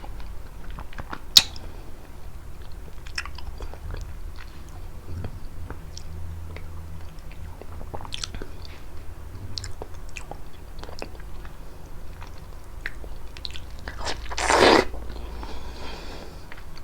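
Prickly pear fruit being bitten and chewed close to the microphone: a run of small wet clicks, with one sharp click about a second and a half in and a louder burst of noise near the end.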